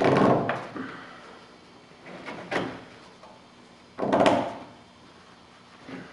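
Nylon strap of a tailgate net pulled through its buckle in three short tugs, each a brief sliding rasp, about two seconds apart, as the net is cinched tighter.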